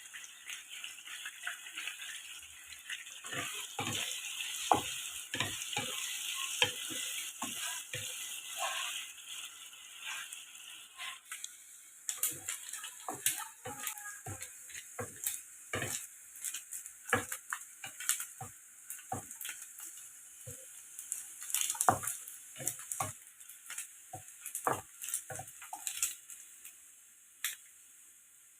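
Food sizzling while being stir-fried in a hot pan, with a cooking utensil repeatedly knocking and scraping against the pan. The sizzle is strongest for roughly the first ten seconds, then fades, leaving mostly the clicks and taps of stirring.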